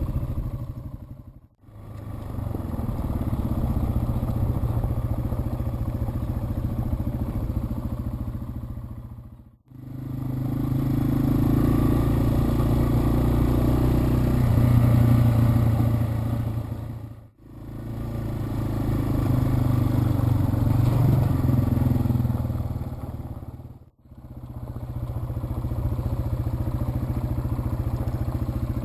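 Yamaha TW200's single-cylinder four-stroke engine running steadily while riding, broken by four brief fades to silence between joined segments.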